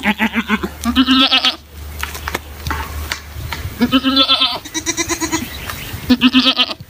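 Goats bleating: about five loud, wavering bleats, two close together at first, then a pause of about two seconds before three more.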